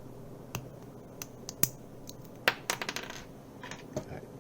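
Sharp little plastic clicks and snaps from a keyboard switch being handled and pried open: scattered single clicks, then a quick run of them just before the middle.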